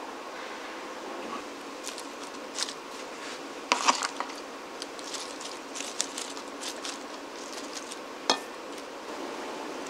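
Crisp rustling and small crackles of baby leaf greens being set down and arranged by hand on an open sandwich, loudest about four seconds in, with a sharp tick near the end. A steady faint hum runs underneath.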